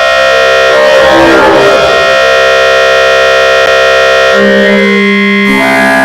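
Loud, dense electronic music built from sound-effect samples sequenced on the Thirty Dollar Website: many sustained tones stacked into one crowded chord. About a second in there is a rough, noisy smear. The chord shifts pitch twice near the end.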